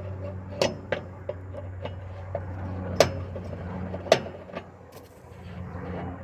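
Irregular sharp metallic clicks and knocks of a wrench working loose the blade nut on a riding lawnmower, the two loudest about three and four seconds in, over a steady low hum.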